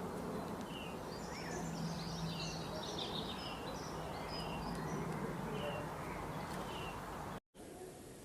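Small birds chirping and twittering in many short, quick notes over background noise and a low steady hum. The sound cuts out abruptly about seven seconds in, and a quieter recording with faint chirps follows.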